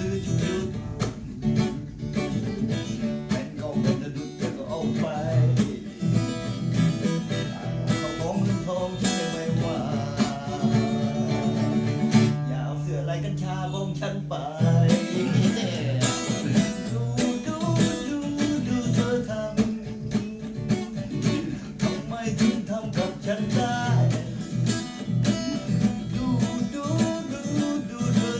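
Music led by a plucked acoustic guitar, with a steady beat and some singing.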